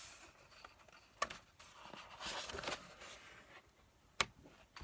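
Quiet handling of a coloring book: paper rustling as pages are turned, with two sharp clicks, one about a second in and one near the end.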